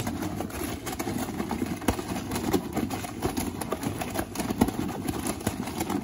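AEG top-loading washing machine with its drum turning mid-wash: a steady machine noise with frequent irregular knocks and clatter from the wet load tumbling inside.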